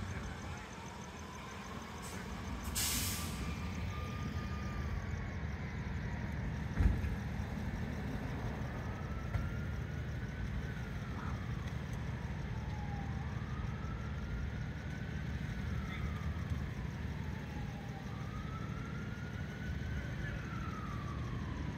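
An emergency vehicle's siren wails, slowly rising and falling every few seconds, over a steady low rumble of idling engines. A short hiss comes about three seconds in and a single thump near seven seconds.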